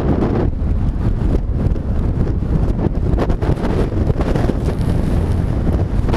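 Loud wind noise on the microphone of a camera riding on a stunt kite in flight, a constant low rush that swells and eases unevenly as the kite turns.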